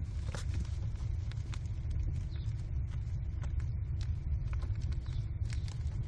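American kestrel nestlings scuffling on the wood-chip floor of a nest box as they mantle and tug over prey: scattered short scratches and rustles from talons and wings, over a steady low rumble.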